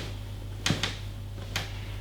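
Three short, sharp knocks during chiropractic handling: two in quick succession about two-thirds of a second in and a third about a second and a half in, over a steady low electrical hum.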